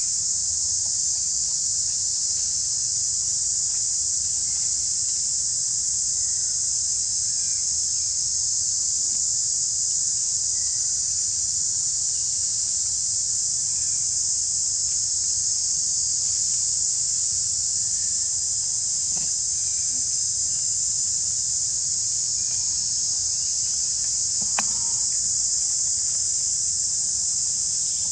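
Steady high-pitched insect chorus droning without a break, with a few faint short chirps and a single sharp click near the end.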